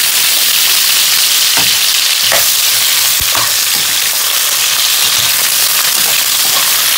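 Cubed potatoes and carrot slices sizzling steadily as they fry in hot oil in a wok, with a metal spoon knocking and scraping against the pan a few times as they are stirred.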